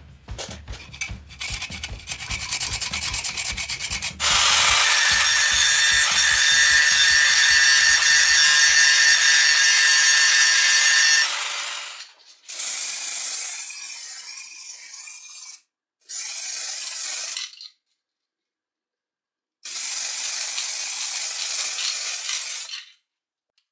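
A loud, steady hiss with faint held tones in it for about seven seconds, then an aerosol spray-paint can spraying black paint onto a bare steel plate in three bursts of about three, one and a half, and three seconds.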